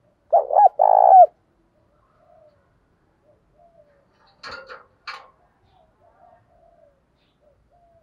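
Spotted dove cooing: a loud three-note coo just after the start, the last note the longest. About four seconds in come two short rasping noises, with faint cooing between.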